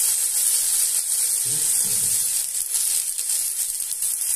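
Blue marlin steaks and sautéed onion, tomato and garlic sizzling steadily in hot oil in a cooking pot. A brief low murmur of voice comes about a second and a half in.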